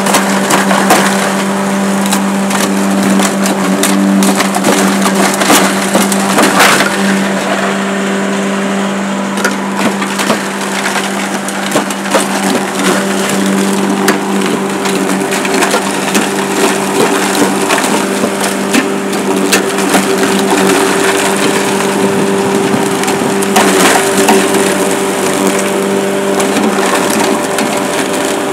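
Feed hammer mill running with a steady hum while it grinds hard, dry lumps of stale bread into pig feed, with a continuous irregular crackle and crunch of the pieces being broken up.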